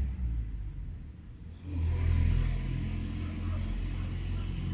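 A low rumble that fades about a second in, then swells again about two seconds in and holds steady.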